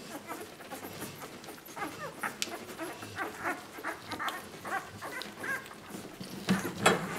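Newborn Labrador puppies, ten days old, squeaking and whimpering as they suckle, many short high squeaks following one another, louder near the end.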